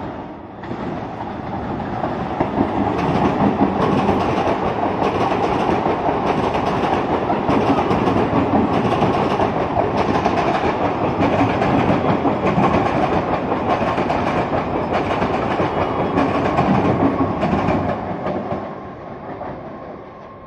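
Eastern Railway EMU suburban train passing close by: a steady rumble of wheels on rail with a regular clickety-clack as the wheels cross rail joints. It builds over the first couple of seconds and fades away near the end.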